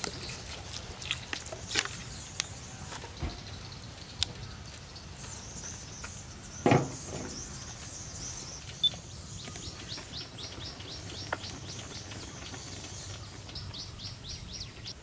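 Birds chirping outdoors, with scattered light clicks and one louder knock about seven seconds in; near the end a bird gives a quick run of repeated chirps, several a second.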